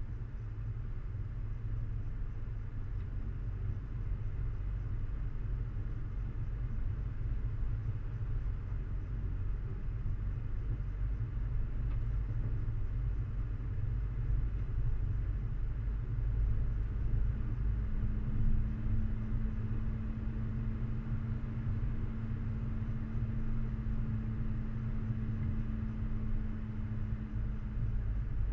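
A 4x4 vehicle driving slowly up a rough dirt track: a heavy, steady low rumble from the engine and the tyres and body working over the ruts. A steady hum joins about two-thirds of the way through.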